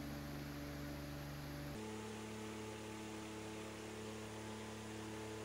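Faint steady electrical hum over a light hiss. Its set of tones changes suddenly a couple of seconds in, then holds steady.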